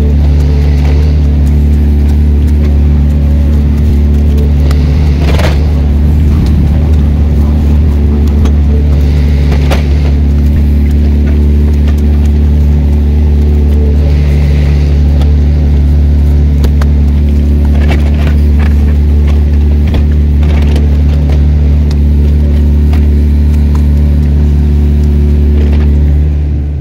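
An engine running steadily at a constant speed, a loud, unchanging low drone. Several sharp knocks and scrapes sound over it, the clearest about five seconds in.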